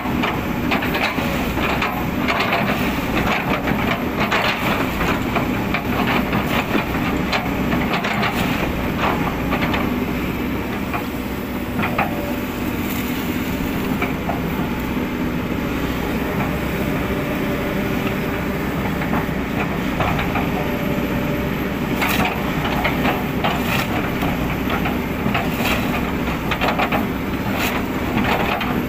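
Hydraulic excavator's diesel engine running under load while its bucket chops and crushes an old oil palm trunk into chips. Repeated cracking and crunching of the fibrous wood sits over the engine, thickest in the first third and again near the end.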